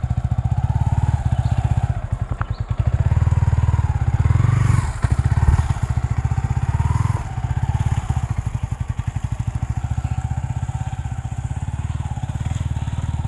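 Yamaha R15 V4's single-cylinder engine running at low revs as the motorcycle creeps through sticky mud. The revs rise and fall a few times as the throttle is opened and eased.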